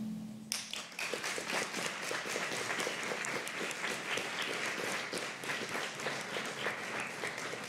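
Audience applauding, the clapping starting about half a second in and going on steadily.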